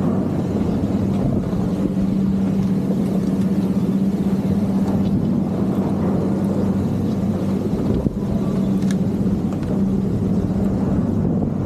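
Steady rushing noise of a ski chairlift ride, with a constant low hum that fades near the end and a single sharp click about eight seconds in.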